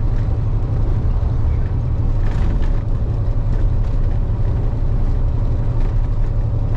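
KAMAZ 4308 truck's diesel engine running steadily under way, heard from inside the cab as a constant low drone with a faint steady whine above it.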